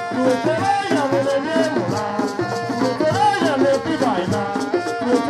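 Traditional Tiv dance music: shaken rattles keeping a fast, steady beat under a melody that bends and glides in pitch.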